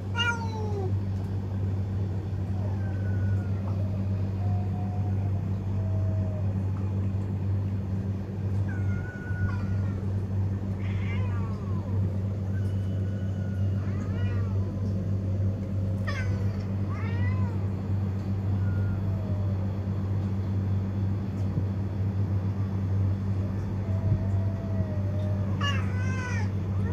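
Cats meowing on and off, about a dozen calls, some short and some drawn out with a falling or rising pitch, over a steady low hum.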